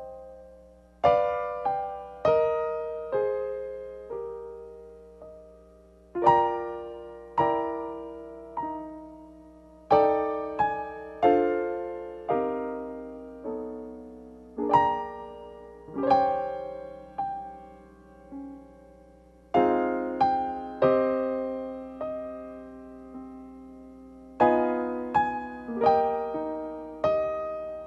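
Solo piano playing slow, gentle chords, each struck and left to ring and fade before the next, with a faint steady low hum underneath.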